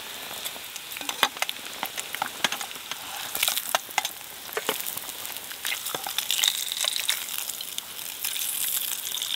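Bacon sizzling in a Firebox 8-inch frying pan, a steady hiss broken by many sharp metallic clicks and taps as tongs lift the rashers out of the pan.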